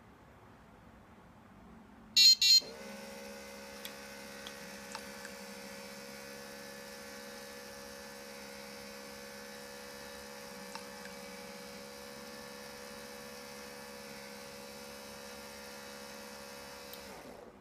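Two short, loud electronic beeps, then a small electric motor of a GSM-controlled garage door mechanism starts and runs with a steady hum for about fourteen seconds before cutting off.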